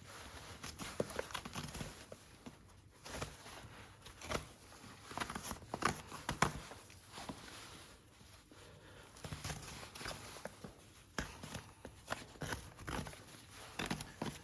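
Horse hoof being trimmed: irregular scraping and cutting strokes on the hoof horn, with occasional knocks of the hoof.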